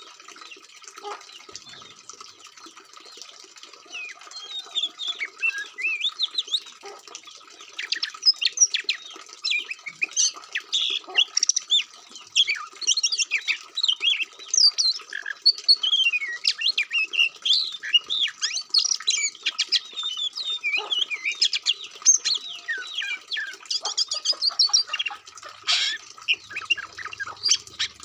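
Oriental magpie-robin (kacer) singing a fast, varied run of chirps, whistles and squawks that grows busier a few seconds in.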